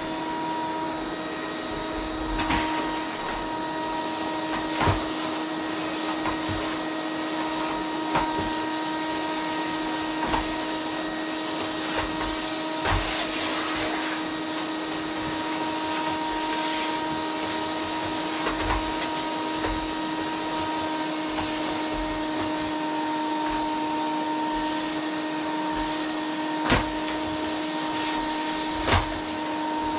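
Vacuum cleaner running steadily, a constant whooshing hiss with a steady motor whine, as it is pushed over a wooden floor. A few short knocks stand out here and there, the loudest near the end.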